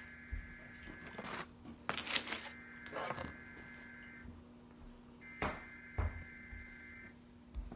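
Emergency Alert System SAME header data tones: three harsh buzzing digital bursts, each just under two seconds long and about a second apart, signalling the start of an EAS test message. Several sharp clicks and rustles fall between the bursts over a steady low hum.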